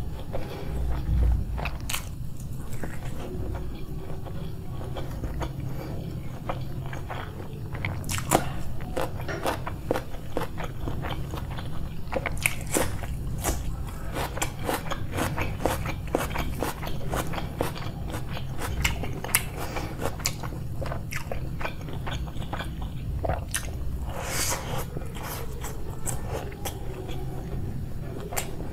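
Close-miked eating: a person chewing and biting with wet mouth sounds and repeated short crunches, as of biting raw onion or chili along with biryani rice.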